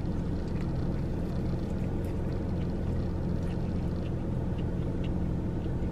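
Steady low hum of a parked car's engine idling, heard from inside the cabin, with faint small clicks of chewing over it.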